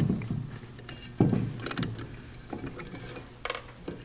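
Small metal carburetor parts clicking and scraping as an Edelbrock four-barrel carburetor's float assembly is worked loose by hand and a screwdriver is used on a second carburetor. There are scattered sharp clicks, the loudest just over a second in, over a faint steady hum.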